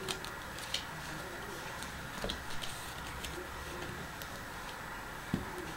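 Playing cards being dealt onto a cloth-covered table: scattered, irregular soft clicks and snaps of the cards over a faint steady hiss.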